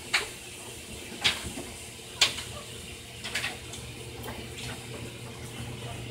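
Short wet smacking clicks, roughly one a second with a small cluster a little after the middle, from a mother dog and her week-old nursing puppies, over a steady low hum.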